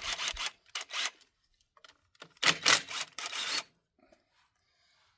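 Three short rasping bursts of tool noise, the last and loudest lasting about a second, as the bolts of the ATV's oil filter housing are worked loose.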